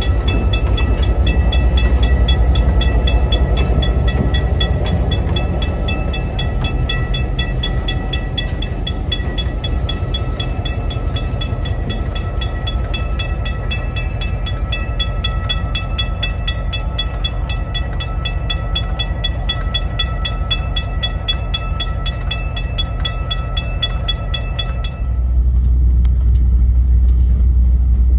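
Diesel-electric locomotive 252 running close by with a heavy, steady low rumble and a steady high ringing above it. About 25 s in the sound cuts to the deeper, even rumble of riding aboard the moving train.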